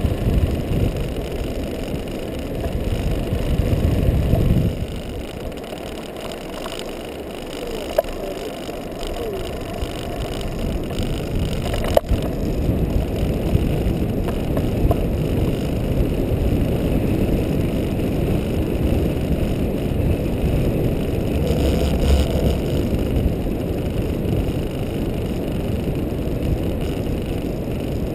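Rumble of a Libre Vmax kite buggy's wide balloon tyres rolling fast over firm beach sand, mixed with wind buffeting the microphone, rising and falling in strength. Two sharp clicks from the buggy come through partway in.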